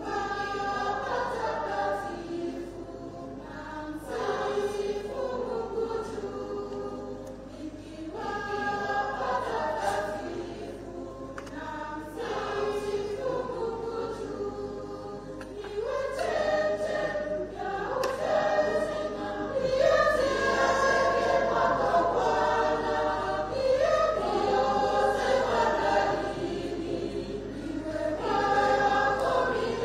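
Robed church choir singing a hymn in harmony under a conductor, in phrases a few seconds long, growing louder about halfway through.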